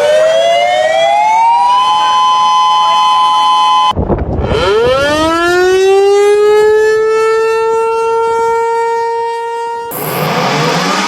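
Sirens played back to back. First a two-tone siren winds up in pitch and holds. About four seconds in it cuts off abruptly to another siren that rises quickly from a low pitch and then holds a steady wail. Near the end a third siren starts winding up from low.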